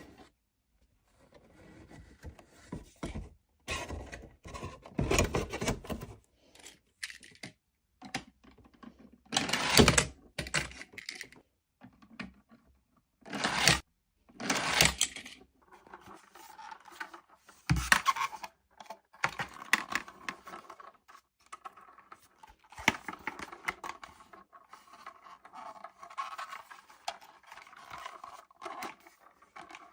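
Toy packaging and plastic toys being handled: irregular rustling and scraping with light clicks and knocks, a sharper knock about two-thirds of the way through.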